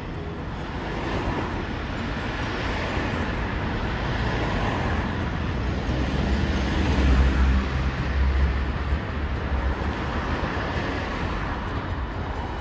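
Street traffic noise around a Green Mover LEX low-floor tram creeping toward the stop. A low rumble and hum swells about six seconds in and eases off after nine.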